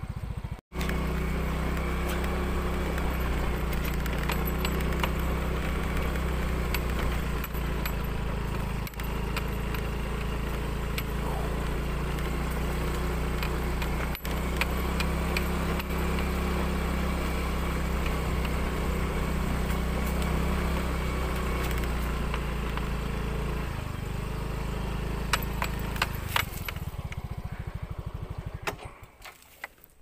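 Small motorcycle engine running steadily while riding; it slows near the end and is switched off a second or two before the end, with a few light clicks just before it stops.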